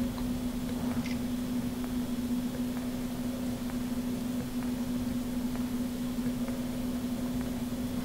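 Steady low hum, like a small fan or appliance running, with a faint click about a second in.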